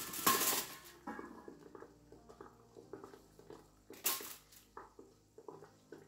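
Water poured into a large stainless steel steaming pot, splashing until it stops just under a second in. A brief rustle about four seconds in, then quiet handling sounds.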